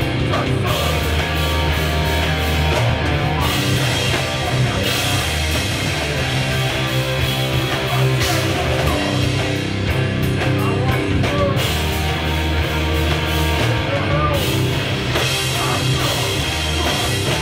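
Loud live heavy rock band playing: distorted electric guitars and bass over a drum kit, with cymbal crashes that come and go through the passage.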